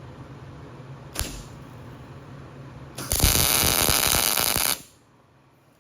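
Welding arc crackling for just under two seconds as a tack weld is laid to join two halves of a steel PTO yoke, cutting off abruptly. A single sharp click comes about a second in.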